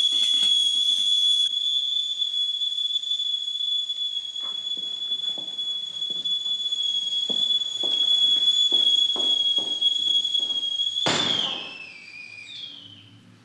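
Stainless-steel stovetop kettle whistling at the boil, one steady high tone, while footsteps approach. About eleven seconds in the whistle breaks off, sliding down in pitch and dying away.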